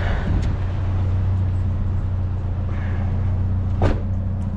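Truck engine idling steadily, with a single sharp knock about four seconds in.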